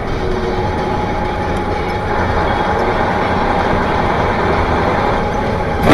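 Steady vehicle running noise: a loud, even rumble with faint steady whining tones over it.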